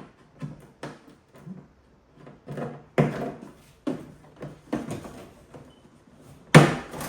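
Knocks, clunks and scrapes of a heavy battery cable being worked through the top of a power station case, in a string of irregular hits; the loudest come about three seconds in and near the end.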